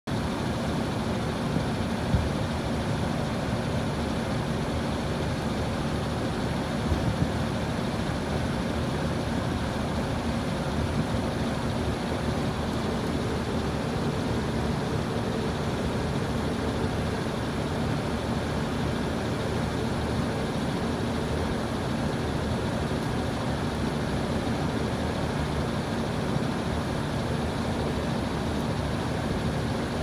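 Airtemp inverter mini-split outdoor condensing unit running steadily: its condenser fan and compressor make an even rushing sound over a steady low hum.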